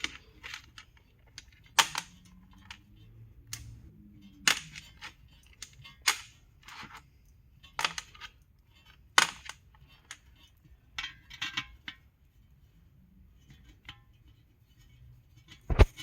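Sharp clicks and taps of hand tools and bolts on a 1971 Ford F-100's transmission pan as the pan bolts are started by hand, coming every second or two, with a quick run of clicks in the middle and a heavier knock near the end.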